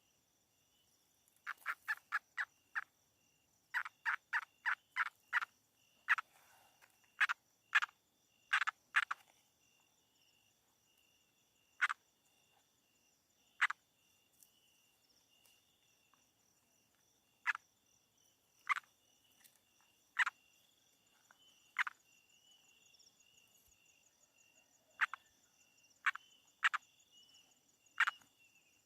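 Frogs calling after rain: short calls, first in two quick runs of about five, then single calls every second or two, over a steady high-pitched insect trill.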